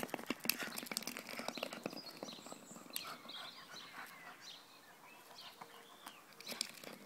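Quick scuffles and taps as a miniature schnauzer paws and noses at a coconut on a hard path, busiest in the first second or so and then sparser. Faint bird chirps come in the middle.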